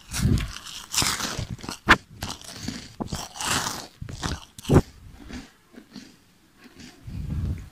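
Close-up wet mouth noises: sucking and lip-smacking in irregular bursts, with a few sharp smacks.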